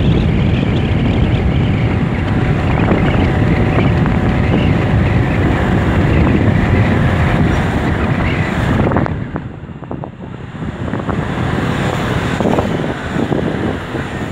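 Wind buffeting the microphone on a moving scooter, over the rumble of the road and the scooter. The level drops for a couple of seconds about two-thirds of the way through, then picks up again.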